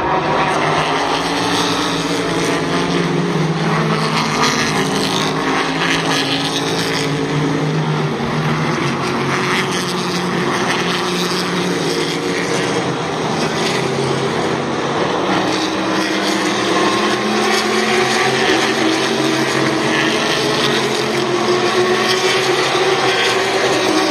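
Several sports-prototype and GT race cars driving past in a close stream at speed, their engines running loud and continuous. Overlapping engine notes rise and fall in pitch as the cars come by and pull away.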